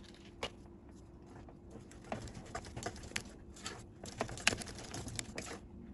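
Wire whisk beating thick pastry cream with whipped-cream powder in an enamel saucepan: irregular soft taps and clicks of the whisk against the pot, sparse at first and busier from about two seconds in.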